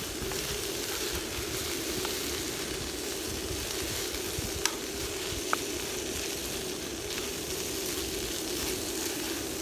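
Chicken in green Thai curry sauce sizzling in a frying pan on a gas camping stove as it is stirred, nearly cooked. Two sharp clicks of the utensil against the pan about halfway through.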